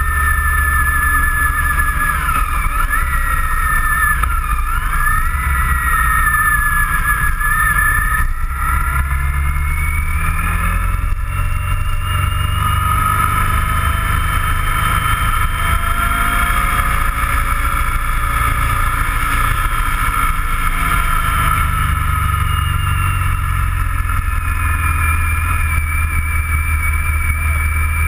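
Motorcycle running at road speed, heard from its own camera mount: a heavy low wind-and-road rumble under a whine that slowly rises and falls with speed, with a few quick dips in pitch about three to five seconds in.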